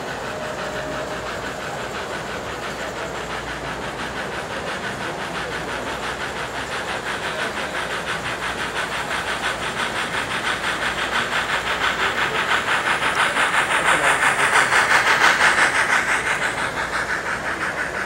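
Model steam locomotive and its passenger cars running along the track: a steady hiss with a rapid even pulse. It grows louder as the train comes close, is loudest about 15 seconds in as it passes, then fades.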